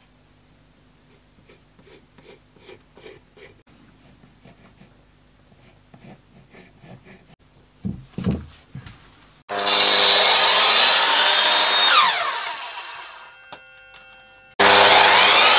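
Faint pencil strokes scratching across an oak board, with a couple of soft knocks. Then an Evolution mitre saw starts suddenly and cuts into the hard oak, its motor whine falling as it spins down, and starts up again for another cut near the end.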